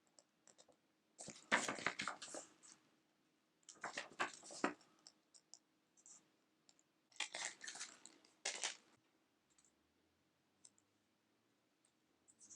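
Handling of a Blu-ray case and its paper cover art: three bursts of rustling and crackling, with small clicks in between.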